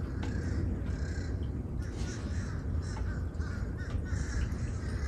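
Birds calling off and on over a steady low hum.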